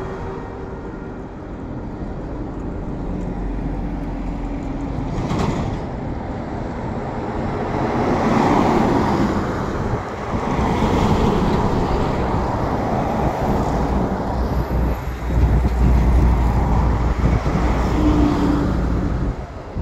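Road traffic noise: the engine and tyre rumble of vehicles passing close by, louder near the end as a truck goes past, with wind on the microphone.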